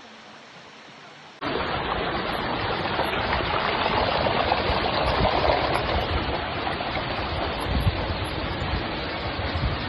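Rushing water of a tall waterfall, a steady noise that jumps suddenly much louder about a second and a half in.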